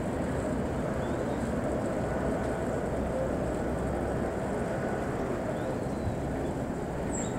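Distant Marine Liner electric train running along a concrete viaduct: a steady, even rumble.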